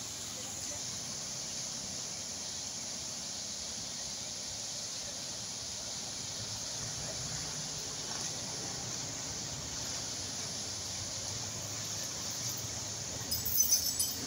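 Steady rushing of a fast-flowing, foaming river around a bathing elephant, with a short burst of louder, sharp sounds near the end.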